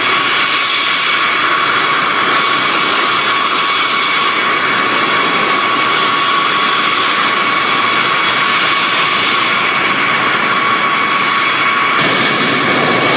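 Jet aircraft engines running at high power: a steady loud roar with a steady high-pitched whine over it.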